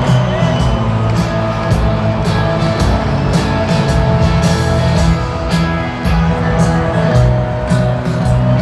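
Live rock band playing: amplified guitars over a steady drum beat.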